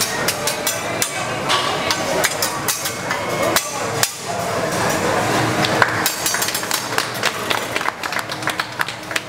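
Metal spatulas clacking and scraping on a flat steel teppanyaki griddle and against each other, in many quick, irregular strikes.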